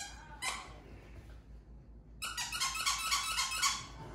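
A squeaky toy squeaks as a puppy chews it: a single squeak about half a second in, then a quick run of squeaks, about five a second, from just past two seconds until near the end.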